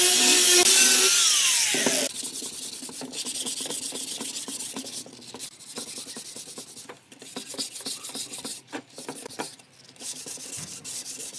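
An angle grinder with a sanding disc is sanding a wooden stool top. It is switched off about a second in and its pitch falls as it winds down. The loudest part follows: the wooden top is hand-sanded with a small piece of sandpaper in irregular scratchy strokes with brief pauses.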